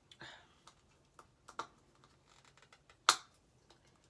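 Small plastic clicks and taps of fingernails picking at the seal of an e.l.f. HD loose powder jar, which has no tab to grab. One click about three seconds in is much louder than the rest.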